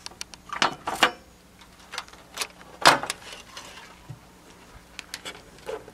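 Handling noises around the car: a handful of separate sharp clicks and knocks, the loudest about three seconds in.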